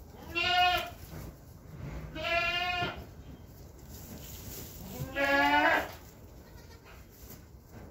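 Goats bleating: three wavering bleats, each under a second long and a couple of seconds apart.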